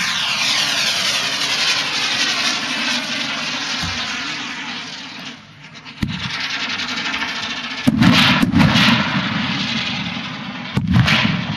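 Aerial firework climbing with a long rushing hiss for about five seconds, then bursting: a sharp bang about six seconds in, a louder boom about two seconds later, and another boom near the end.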